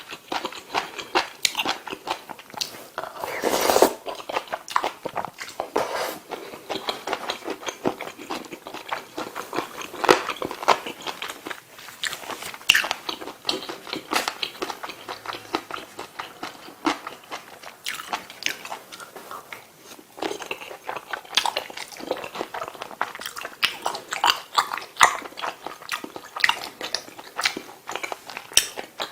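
Close-miked eating of kimchi stew with ramen noodles: steady chewing and biting with many small wet mouth clicks and smacks, and one longer, louder rush about three seconds in.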